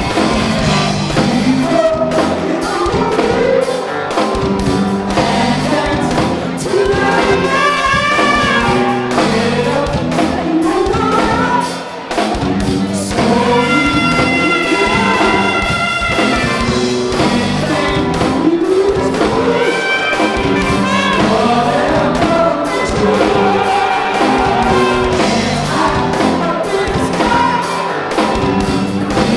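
Live band music played loud through a PA: drum kit, bass, guitar and keyboards keeping a steady beat, with singing over it.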